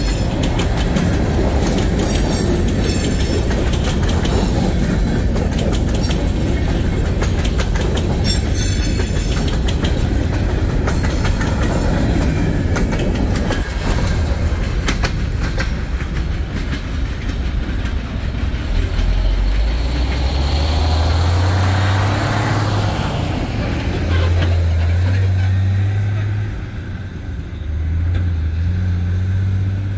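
Freight cars of a mixed freight train rolling past close by, wheels clattering and rumbling steadily over the rail joints. After about twenty seconds the clatter thins as the last cars go by, leaving a heavy low rumble.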